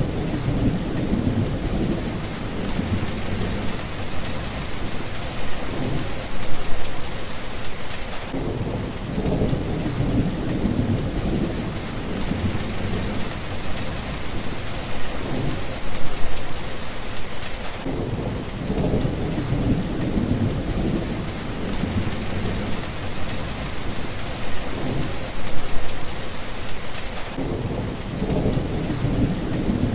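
Heavy rain falling steadily, with thunder rumbling again and again in long, low rolls.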